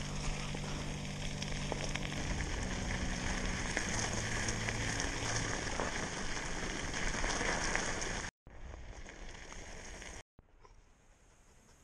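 Mountain bike tyres rolling fast over a gravel road, with wind rushing over the microphone: a steady, gritty hiss. It cuts off abruptly about eight seconds in, comes back quieter for a couple of seconds, then drops to near silence near the end.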